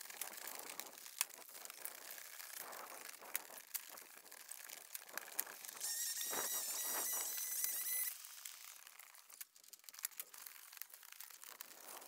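Old asphalt shingles being torn off a roof with roofing shovels and pry bars: scraping, crinkling and tearing with scattered knocks and clicks. About six seconds in, a high wavering squeal lasts about two seconds.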